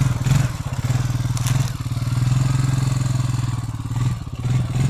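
A vehicle engine running steadily at low revs, its note dipping briefly near the end.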